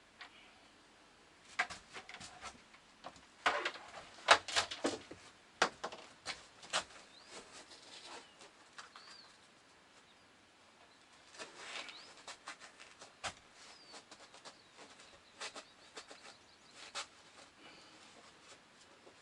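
Scattered clicks and short rattles, loudest and densest a few seconds in, with a few faint high chirps, bird-like, between them.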